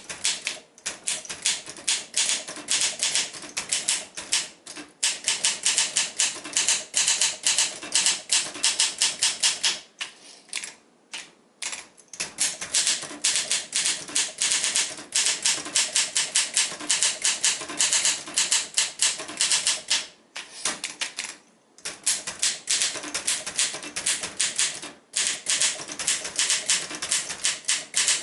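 1963 Olympia SM7 portable manual typewriter being typed on: a rapid, steady run of key and typebar strikes, broken by a few short pauses.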